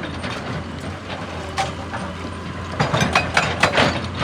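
Excavator's diesel engine running steadily, with a quick run of sharp knocks and clanks near the end.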